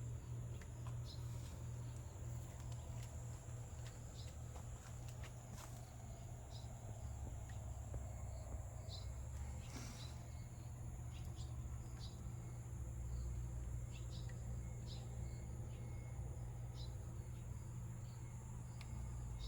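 Insects calling: a steady high trill with short, higher chirps about once a second, over a steady low rumble.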